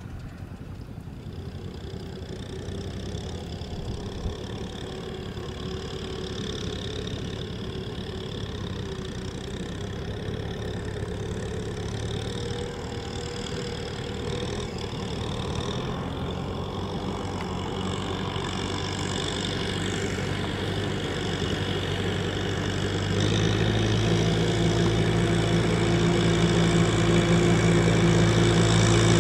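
Kubota M6040SU tractor's four-cylinder diesel engine running steadily as it pulls a loaded trailer through deep water and mud, growing louder as it comes closer, with a step up in loudness about three-quarters of the way through.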